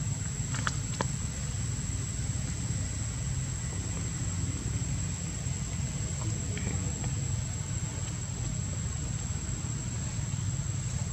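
Steady outdoor background: a low rumble with a thin, steady high-pitched whine over it, and a couple of faint clicks about a second in.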